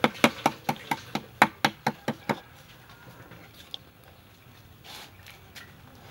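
A quick run of about a dozen sharp knocks in the first two and a half seconds, from food being worked against metal cookware, then only faint handling sounds.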